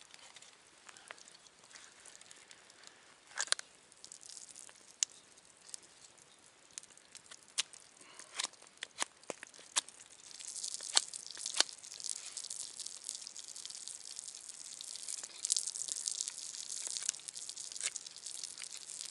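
Small campfire of split kindling crackling, with scattered sharp snaps at first; about halfway through it turns into a dense, steady hissing crackle as the fire takes hold.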